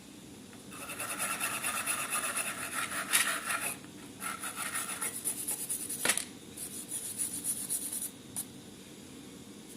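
Fast abrasive rubbing strokes on the metal of an old wrench during hand rust removal. The rubbing starts about a second in, pauses briefly twice and stops near the end.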